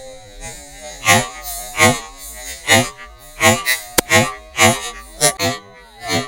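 Background music with a steady beat and a buzzy melody.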